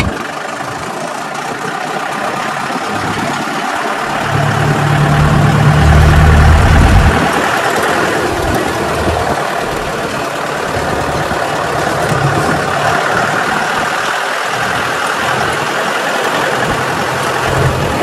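Jeep engine running as it drives, with wind and road noise rushing past; a loud low rumble swells from about four to seven seconds in.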